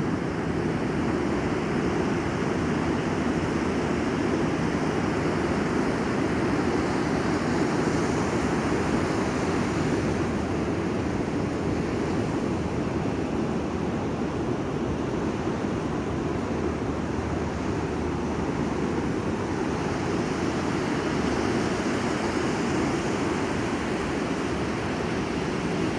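Ocean surf breaking on the beach: a steady rushing noise that swells slightly a few times.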